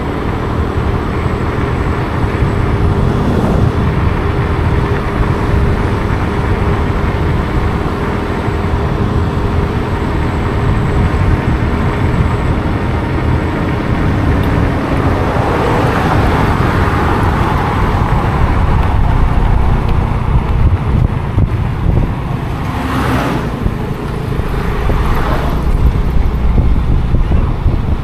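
Motor vehicle and road noise: a steady engine hum over a low rumble, swelling around the middle and twice briefly near the end as traffic passes.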